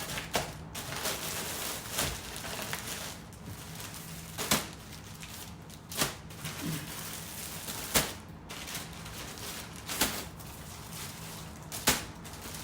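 Plastic shipping packaging being handled and opened, with sharp clicks and crackles about every two seconds over a faint steady hum.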